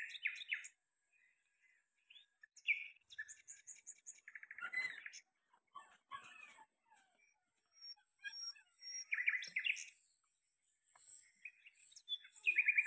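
Songbirds chirping in a garden: several short, rapid trills of repeated notes, one about four seconds in, one near ten seconds and one at the end, between thin high-pitched calls.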